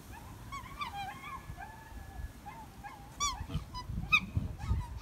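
Black swans calling: a run of short, musical bugling notes that slide up and down in pitch, with louder calls about three and four seconds in.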